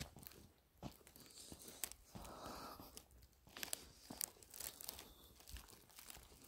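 Faint, irregular crunching of footsteps in fresh snow, with scattered small crackles.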